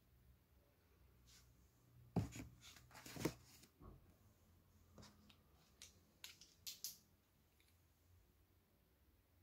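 Quiet room tone broken by a scatter of short clicks and rustles of handling, strongest about two and three seconds in and again near seven seconds.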